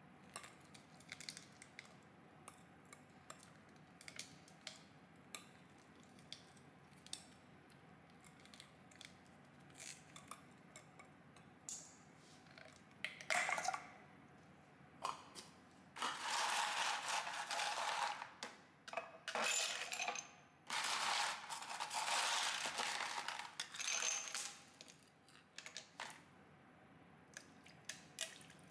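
Dishes and cutlery clinking and knocking during kitchen work, many small sharp clicks. In the second half come several rushing bursts of one to three seconds each.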